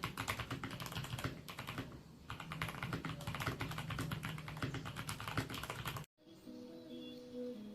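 Rapid typing on a mechanical keyboard fitted with Cherry-profile double-shot keycaps: a dense run of keystroke clacks with a short pause about two seconds in. The typing cuts off abruptly about six seconds in and background music follows.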